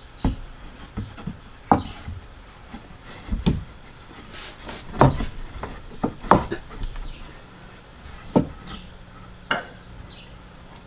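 Irregular wooden knocks and clatter of boards and tools being handled, about a dozen sharp knocks spread unevenly.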